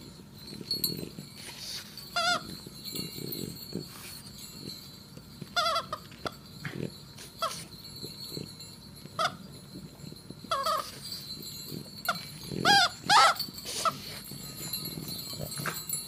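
Squeaker in a plush Christmas dog toy squeaking in short, wavering squeals about eight times at irregular intervals as a French bulldog bites and chews it, loudest twice in quick succession about 13 seconds in. Low chewing and breathing noises come from the dog between the squeaks.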